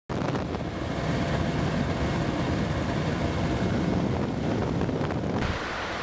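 Wind buffeting the microphone, a heavy low rumble with a faint high whine. About five and a half seconds in it cuts abruptly to lighter, steady surf and wind.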